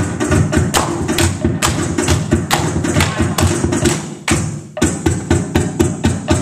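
Fast percussion accompanying a Samoan sasa dance: a quick, steady beat of sharp wooden-sounding strikes and thumps. It drops out briefly about four seconds in, then picks up again.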